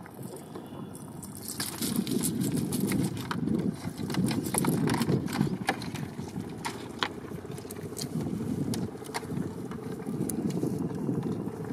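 Scattered clicks and rattles of a wet fishing net and its catch being handled, with eels, crabs and small fish going into a plastic crate. Under them runs a low, uneven rumble.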